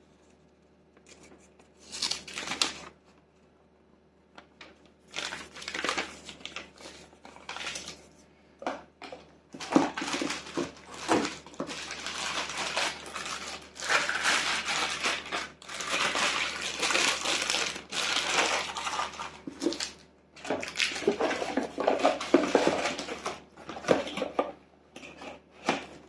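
Packaging being handled and unwrapped: irregular bursts of rustling and crinkling with a few sharp knocks, busiest in the second half.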